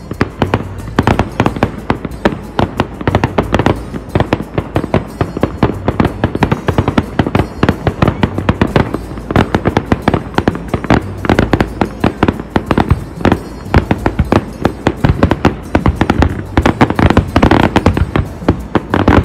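Fireworks display going off: a rapid, continuous run of bangs and crackles, with music playing underneath.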